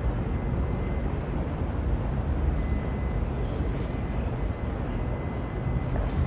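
Steady low rumble of city traffic noise with no distinct events.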